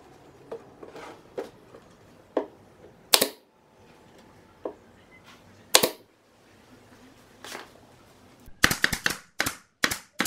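Pneumatic brad nailer firing nails into MDF panels: single shots about three and six seconds in, then a quick string of shots near the end. Lighter knocks from the panels being handled come before.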